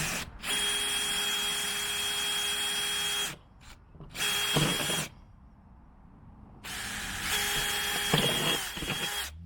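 Power drill running in three bursts as holes are drilled through an RV compartment door: a run of about three seconds, a short one of about a second, then another of about two and a half seconds, each a steady whine. The bit goes through easily.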